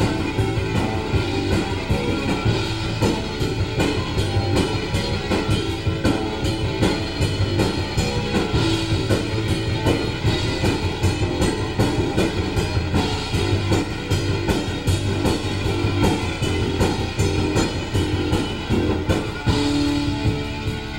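Rock band playing live: a drum kit keeping a steady, driving beat under electric guitar and bass.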